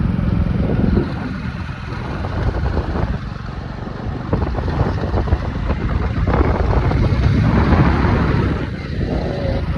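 Wind buffeting the microphone over the steady rumble of a moving vehicle. The rumble is loud, dips a little about a second in and picks up again around four seconds.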